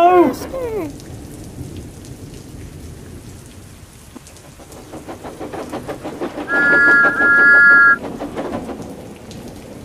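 Steady heavy rain. About halfway through, the regular exhaust beats of a steam locomotive come in. After that a steam whistle gives one long blast of about a second and a half.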